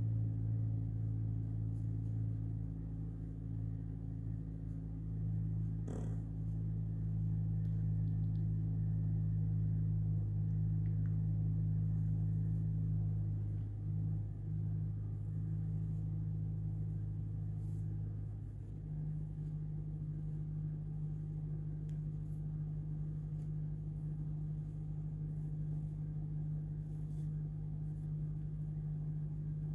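A steady low hum, like a running motor or appliance, goes on throughout, with a single faint click about six seconds in.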